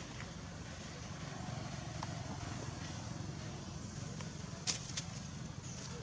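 Steady low outdoor background rumble with a few small sharp clicks, one louder click about three-quarters of the way through.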